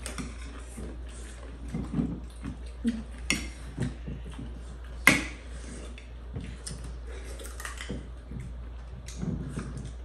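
Spoons and dishes clinking during a meal, a scatter of short clatters with one sharp clink about five seconds in, over a low steady hum.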